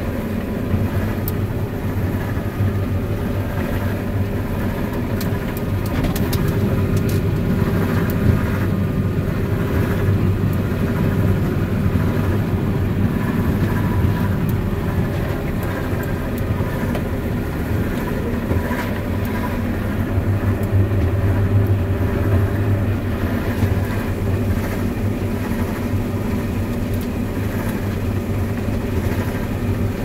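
Claas Lexion 750TT combine harvester running steadily under load while cutting and threshing wheat, as heard inside the cab: a constant engine and machinery drone.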